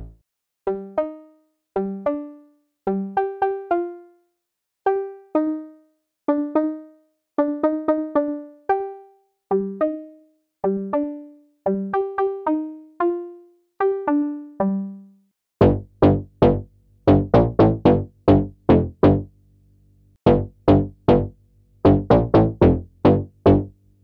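Newfangled Audio Pendulate software synthesizer, a Buchla-inspired double-pendulum chaos oscillator, playing a melodic line of short plucked notes that die away quickly. About 15 seconds in, a louder, denser rhythmic run of sharp notes over a low sustained tone takes over.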